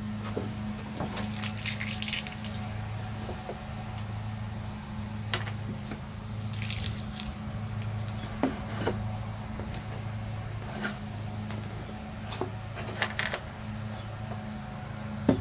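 Scattered light metallic clicks and clinks of small bolts, nuts and tools being handled while battery terminal connections are fitted, with a few short rustling noises, over a steady low hum.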